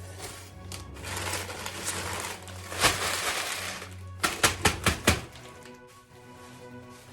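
Cardboard shipping box being opened by hand: rustling and tearing of cardboard and packing tape with one sharp crack, then a quick run of five sharp clicks, over background music with a steady low drone.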